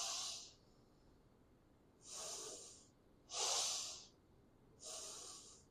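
A person breathing deeply and audibly: four faint breaths, each under a second, taken as slow counted breaths while holding a yoga pose.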